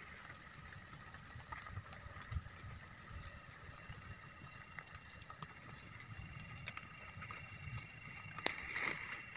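Steady high drone of forest insects, with scattered small clicks and twig snaps as sticks are handled and laid on a small campfire; a sharper snap comes near the end.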